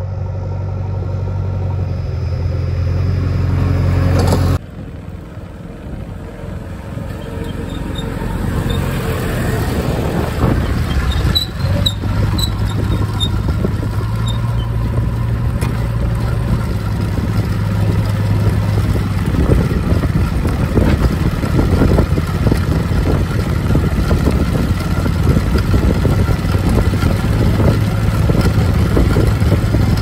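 Heavy diesel engines of a JCB backhoe and Tata 2518 tipper trucks running with a steady low hum. The sound breaks off suddenly about four and a half seconds in, then builds up again and turns rougher, with irregular clatter.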